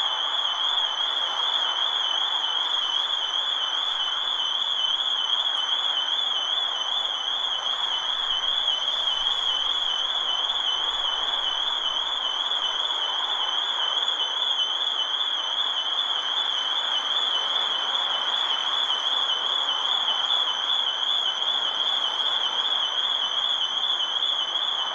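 Electronic security alarm sounding one continuous high-pitched warbling tone, over a steady noise beneath it.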